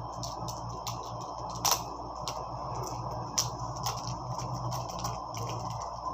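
Album packaging being handled: irregular sharp clicks and crinkles of paper and plastic, the loudest about one and a half seconds in and again about three and a half seconds in, over a steady background hiss and hum.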